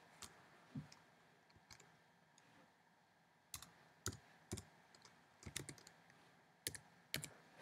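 Faint keystrokes on a computer keyboard: about a dozen single taps at irregular intervals, a few in quick runs, as a short word is typed.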